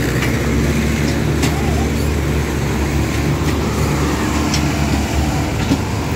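Mahindra Arjun 605 tractor's diesel engine running steadily under load, hauling double trailers full of sugarcane through mud. A few short sharp clicks sound over the engine.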